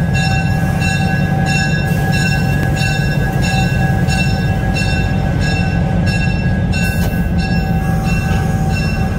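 EMD RS-1325 locomotive's 16-cylinder 567 diesel engine running with a steady heavy rumble as the locomotive moves slowly, its bell ringing about twice a second.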